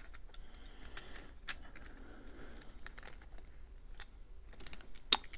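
Handling noise from a Damned Designs Djinn folding knife being worked apart by hand: scattered small clicks and scrapes of its parts, with one sharper click near the end.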